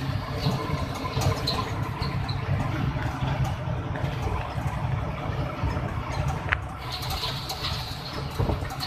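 Vehicle driving at highway speed, heard from inside: steady low engine and road rumble with light rattling clicks.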